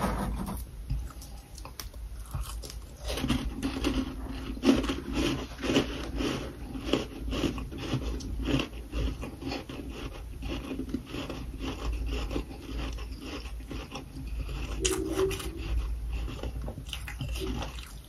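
A person biting and chewing freezer frost close to the microphone: a quick, steady run of crunchy bites and chews.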